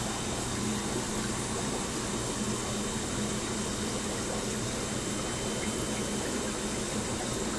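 Steady bubbling and running water from aquarium filtration, over a low, even mechanical hum.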